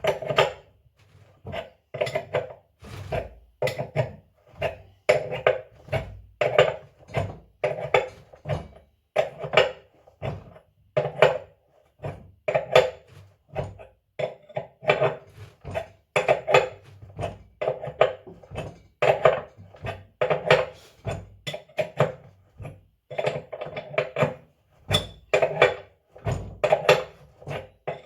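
Steady hammer blows on metal, about one to two a second, each with a ringing clang, knocking the old bearings out of a Samsung washing machine tub.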